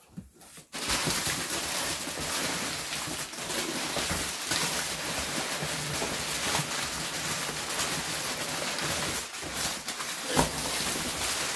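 Crumpled brown kraft packing paper rustling and crinkling as it is pulled out of a shipping box, starting about a second in and continuing unbroken, with sharper crackles now and then.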